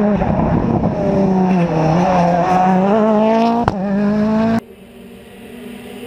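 Rally car engine revving hard, its pitch rising and falling as it works through the gears, with one sharp crack a little past halfway. About three-quarters of the way through it cuts off abruptly, and a fainter engine sound takes over and grows louder.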